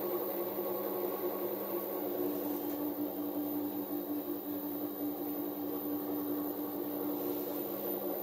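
Upgraded MN80 benchtop lathe running: a steady electric motor hum with a faint high whine, joined by a further steady tone about two and a half seconds in.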